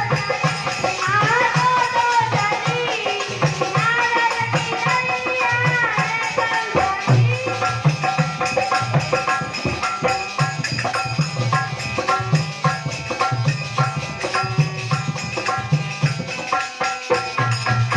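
Indian folk-style music with a hand-drum beat and shaker or rattle percussion. A gliding melody is heard in the first several seconds, after which the drum and rattle rhythm carries on mostly alone.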